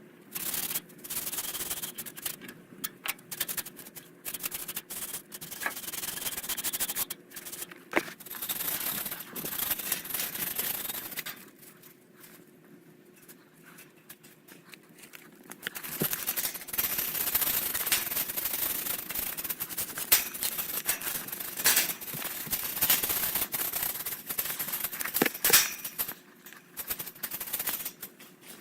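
Scraping and rubbing against the fins of an air-conditioning condenser coil as packed cottonwood fluff is cleaned off. It comes in quick, irregular spells, with a pause of a few seconds a little before the middle.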